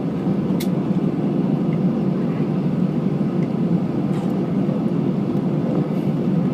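Airplane taking off: a steady low noise of engines and rolling, with no rise or fall.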